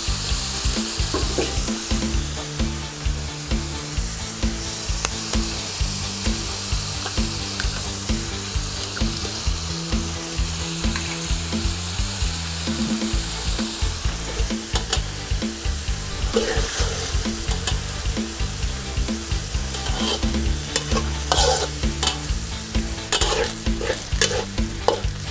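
Beaten eggs frying in hot oil with pork and garlic in a pan, sizzling steadily while being stirred and scrambled, with a spatula scraping and clicking against the pan more often in the second half.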